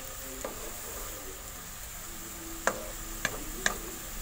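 Sliced onions sizzling in hot oil in a non-stick wok as they brown, stirred with a wooden spoon. The spoon knocks sharply against the pan a few times, three of them close together in the second half.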